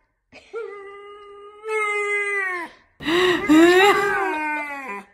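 A puppy lying on its back gives two long, drawn-out howling whines: the first held on one pitch before dropping away, the second wavering up and down.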